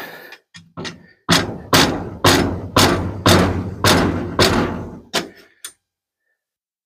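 Heavy pounding while a wooden post is set in the ground: a run of about eight sharp thumps, roughly two a second, each ringing out briefly, with a few lighter knocks before and after.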